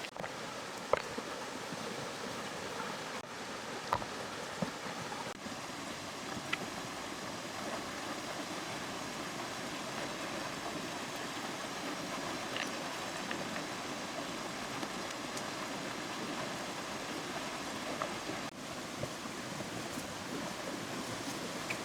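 Steady rush of flowing river water, with a few faint brief clicks scattered through it.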